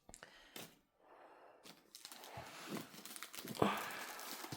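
Packaging rustling and crinkling as kit contents are handled, with a few small knocks.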